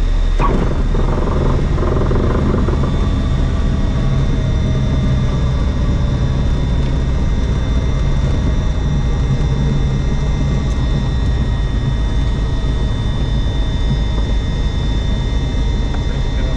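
Diamond DA20 light aircraft's piston engine and propeller running at idle, heard inside the cockpit during the landing rollout: a steady low rumble with a thin, steady high tone over it.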